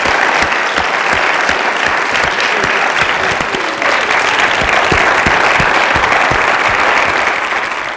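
A theatre audience applauding, a dense, steady clapping of many hands that starts to fade right at the end.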